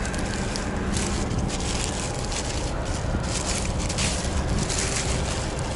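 Plastic filter packaging crinkling and rustling in irregular crackles as new cab air filters are unwrapped by hand, over a steady low rumble.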